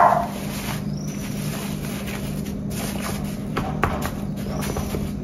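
Faint sounds of hands and a spoon at work on a cake, a few light knocks, over a steady low hum.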